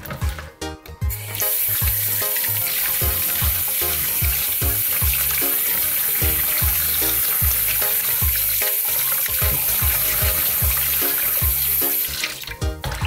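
Tap water running into a plastic basin of cut fish pieces as they are rinsed by hand, a steady splashing rush. The water comes on about a second and a half in and stops near the end.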